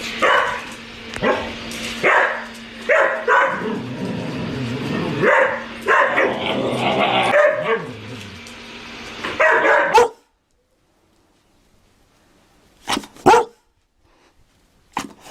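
Dalmatian barking repeatedly in short, sharp barks over background noise, which cuts off suddenly about ten seconds in. After a near-silent pause come two quick double barks near the end.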